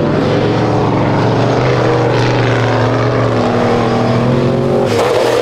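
Off-road truck engine running loud and steady, its pitch drifting slightly up and down.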